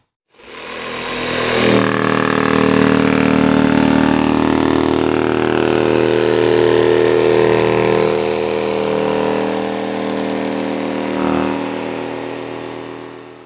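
Cordless Bosch jigsaw running with a T313AW toothless knife blade, cutting through 2-inch green foam board insulation. The motor comes up to speed over the first second or so, runs steadily, and eases off near the end.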